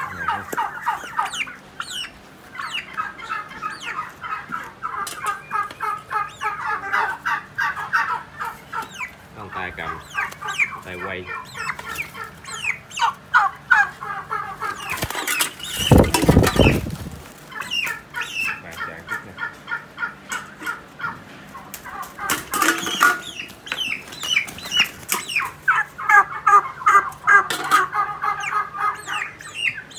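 A flock of young Huba-breed turkeys calling, a steady chatter of quick high peeps and clucks. About halfway through, a loud burst of wing-flapping, and a shorter one a few seconds later.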